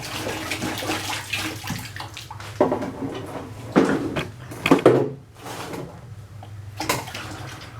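Water pouring and splashing into a bucket, with a few louder moments around the middle.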